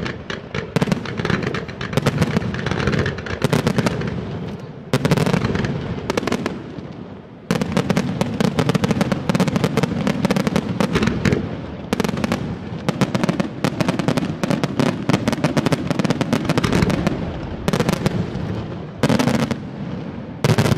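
Aerial fireworks display: a dense, continuous run of rapid shell bursts and crackling bangs. It swells with sudden louder volleys about five seconds in, about seven and a half seconds in, and again near the end.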